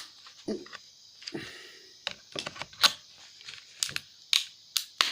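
Plastic laptop battery pack case being pried open with the claw of a hammer: irregular sharp clicks, cracks and snaps of the plastic and tool, some with a short crunch.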